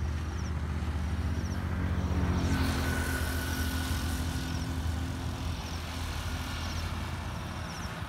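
A motor engine running with a steady low hum, growing louder and noisier about two and a half seconds in as it comes closer, then easing off. A short high chirp repeats about once a second.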